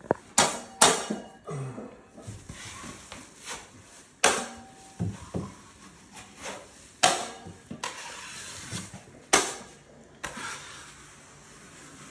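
Drywall taping knife scraping joint compound and clacking against the mud pan, several sharp clacks a few seconds apart with softer scraping between them.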